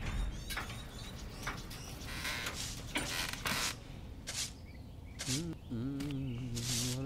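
Repeated short brushing swishes from a long pole being swept along the roof beams, with birds chirping. About five seconds in, a man's voice begins a long held, chant-like tone that slowly rises.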